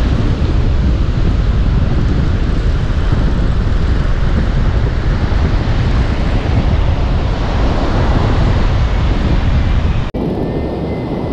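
Strong wind buffeting the microphone over breaking surf: a loud, steady rumble and rush, which drops off abruptly about ten seconds in.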